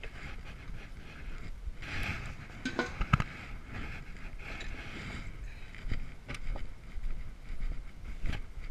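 Rough, gusty noise on the microphone with scattered knocks, and one sharp metallic clink with a brief ring about three seconds in.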